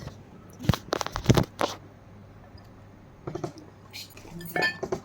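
Borosil glass bowls clinking against each other as they are handled, a quick cluster of sharp clinks about a second in and a few lighter knocks later.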